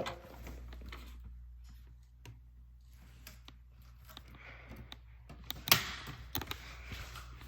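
Daikin indoor furnace/air-handler unit running on cool, a steady low hum, working normally. Scattered light clicks, with a louder click a little under six seconds in.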